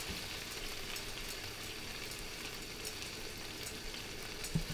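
Anchovies frying in oil in a frying pan: a steady soft sizzle with faint crackling, as more oil is poured in. A brief low knock near the end.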